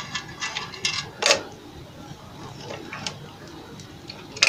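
Scattered small clicks and knocks of hand tools and wiring being handled on an opened CRT television chassis, the loudest about a second in.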